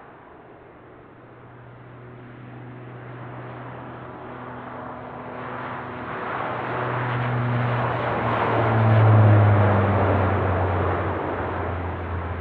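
Bombardier Dash 8 Q400 twin turboprop taking off past the microphone: a low propeller drone and engine noise build to a peak about nine seconds in, the drone dropping in pitch as the aircraft passes, then fading away.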